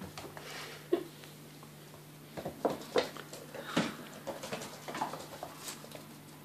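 Two Oriental Shorthair kittens scuffling at play: an irregular patter of small paws, rustling and light knocks, with a few sharper knocks about one, three and four seconds in.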